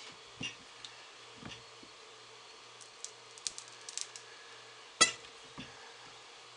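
Block of hot-process soap handled in a wooden soap cutter with a plastic tray: small knocks and light ticks as the block is pushed along and the cutter arm is worked, with one sharp knock about five seconds in.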